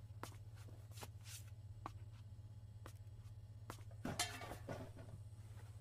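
Faint steady low hum of room ambience, with scattered soft clicks and a brief louder rustle about four seconds in.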